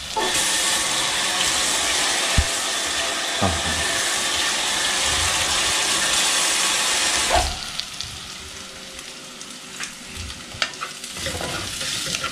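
Onions and spices frying in hot oil in a clay pot. A loud sizzle sets in suddenly and drops back about seven seconds in, leaving a quieter sizzle with a few knocks of the spoon.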